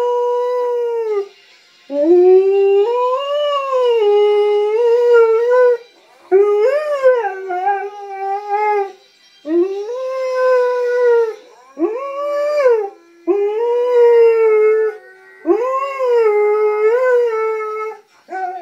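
Alaskan Malamute howling: a string of about seven long, wavering howls that rise and fall in pitch, with short breaks between them.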